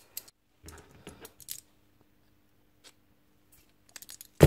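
Small metal parts clicking and clinking as a steel striker jammed inside a worn aluminium hammer-drill piston is worked at with pliers. A cluster of light clicks comes about a second in, and a sharp metallic knock near the end is the loudest sound.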